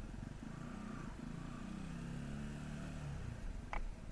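Benelli motorcycle engine running at low speed: its pitch climbs in the first second, then eases slowly down as the throttle is backed off. A short click comes near the end.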